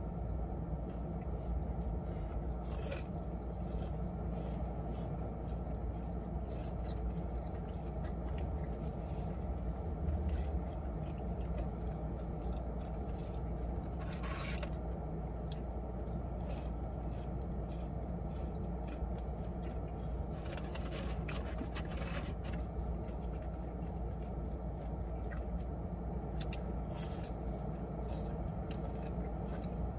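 Steady low hum inside a car, with scattered short rustles and clicks of food wrappers and containers as two people eat.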